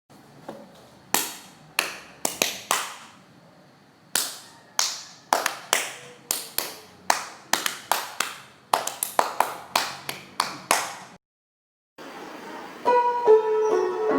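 A run of sharp, dry clicks or taps in an uneven rhythm, some in quick pairs, lasting about eleven seconds: the sound made for a shell-plant creature. After a short silence, a plucked-string melody starts near the end.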